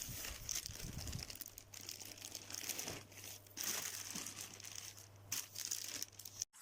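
Irregular crinkling and rustling, like plastic packaging being handled, over a faint steady low hum. It cuts off abruptly near the end.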